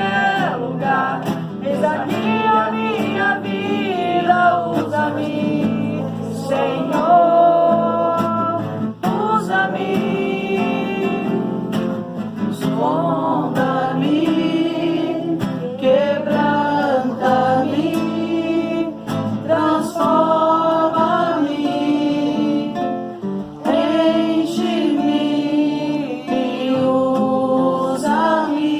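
Voices singing a worship song to a strummed acoustic guitar.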